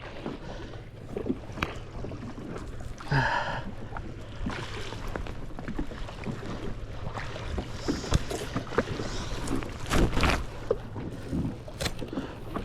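Knocks and clicks of fishing gear being handled aboard a jet ski on the water, over a low steady hum and wind on the microphone, with a louder knock about 10 seconds in.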